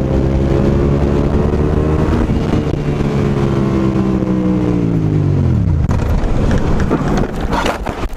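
Suzuki SV650S V-twin engine running steadily, its revs falling away about five seconds in as the rider brakes hard. It then gives way to a rough scraping and clattering as the bike goes down and slides along the road into the curb.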